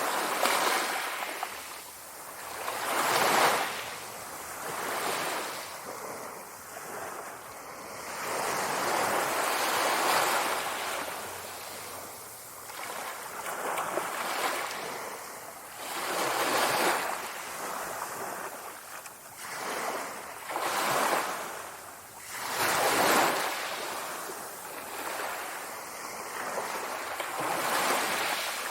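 Sea waves washing in, their rushing noise swelling and falling back every few seconds.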